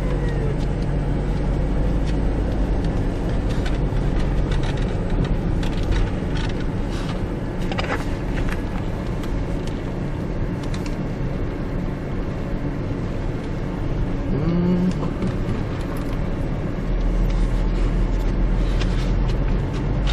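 Car driving slowly along a dirt road, heard from inside the cabin: a steady rumble of engine and tyres, with scattered small clicks and knocks.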